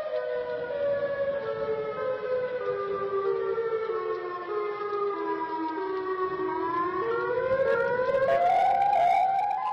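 Civil-defense-style siren sound: one pitched tone slowly falling for about six seconds, then rising again near the end.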